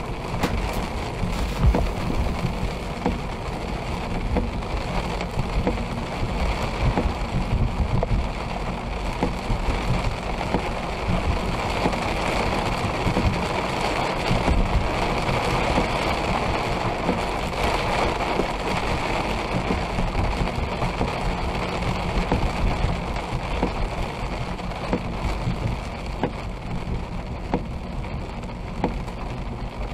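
Rain hitting a moving car's windshield and roof, heard from inside the cabin: many small drop ticks over the steady low rumble of the car driving on a wet road.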